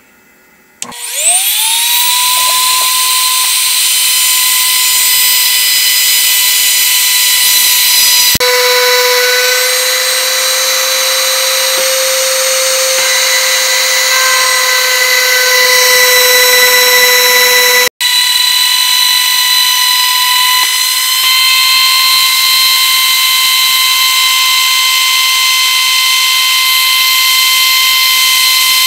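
A 2 HP router on a CNC machine spins up about a second in and settles into a steady high whine. It then runs with a hiss of cutting as a 3/4-inch bit skims a thin layer off the pine spoil-board table to resurface it. The whine shifts abruptly twice.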